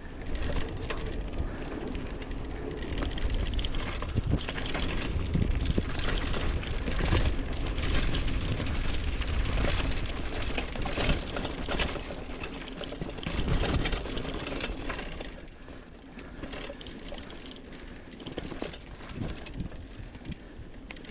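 Mountain bike riding over a rough dirt trail: tyres running on the ground while the bike rattles and clicks over bumps, with a low rumble of wind on the microphone. The riding is busier in the first part and eases off for the last few seconds.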